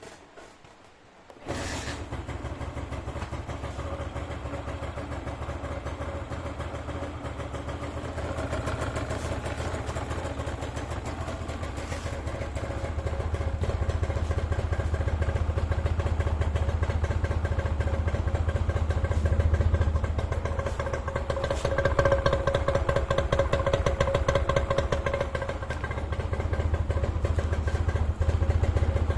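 Honda NS250F's two-stroke V-twin engine starting about a second and a half in and then idling steadily, growing a little louder part way through. It runs without abnormal noises.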